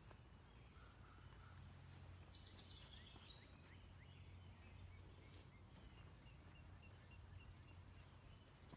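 Quiet outdoor ambience with a steady low rumble, and small birds chirping faintly: a falling run of notes about two seconds in, then a string of short repeated chirps later on.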